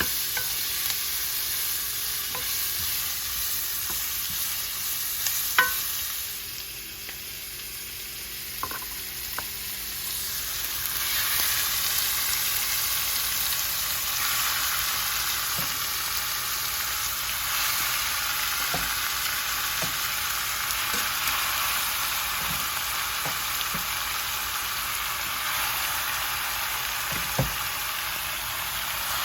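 Food sizzling in a frying pan, a steady hiss with a few sharp taps, as of a utensil against the pan. The sizzle drops away for a few seconds about six seconds in, then comes back louder.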